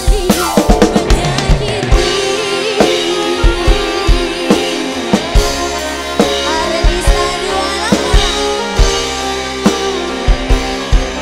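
Live dangdut band playing, with the drum kit prominent: a quick run of drum hits near the start, then a steady beat of kick and snare under keyboard and guitar.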